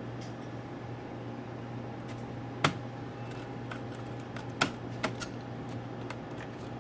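Small screw and screwdriver clicking against the metal frame of an iBook G4 laptop during reassembly: a few sharp clicks, the loudest about a third of the way in and another a little past halfway, with lighter ticks between, over a steady low hum.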